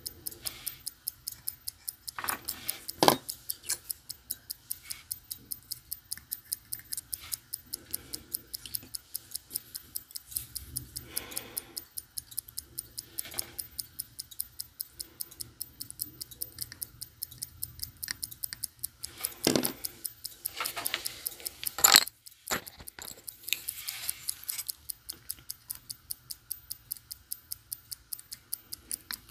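Serviced Sicura BFG 158 jump-hour watch movement running, ticking fast and evenly. A few louder clicks from tools touching the movement cut in about three seconds in and twice past the middle.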